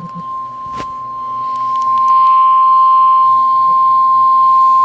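NOAA Weather Radio 1050 Hz warning alarm tone: one steady high tone heard over a radio receiver with faint static beneath. It grows louder over the first two seconds, then holds level. The tone is the alert that a warning message, here a flood warning, is about to be read.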